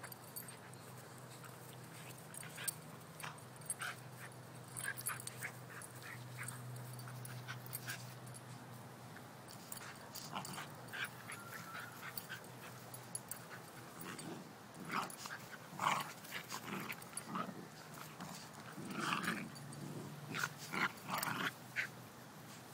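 A grown dog and a 14-week-old puppy play-fighting, with short, scattered dog sounds that come thicker and louder in the second half. A steady low hum runs underneath.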